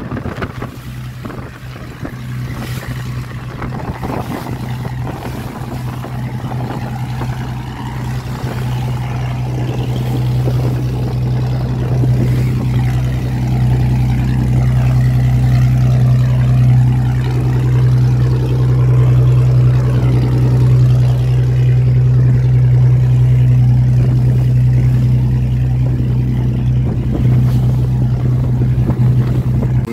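Fishing boat's engine running steadily under way: a low, even drone that grows louder about ten seconds in, with wind on the microphone and water rushing past the hull.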